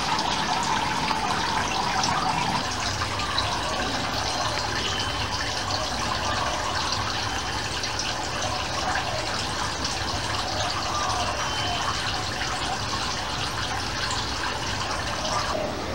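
Steady running water.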